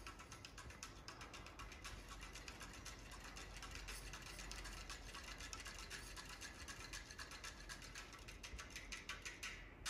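Music leaking faintly from STAX SR-Ω Omega open electrostatic headphones being worn, heard thin and treble-heavy as a quick ticking rhythm with almost no bass. The music breaks off briefly just before the end.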